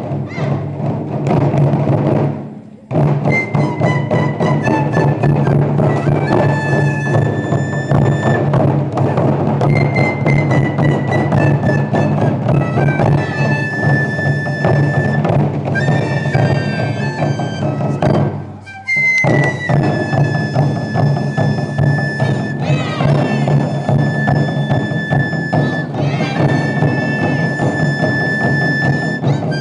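Japanese taiko drum ensemble playing fast, dense strikes, with a high, held melody over the drums that is typical of a shinobue bamboo flute. The playing breaks off for a moment twice, near the start and about two-thirds of the way through.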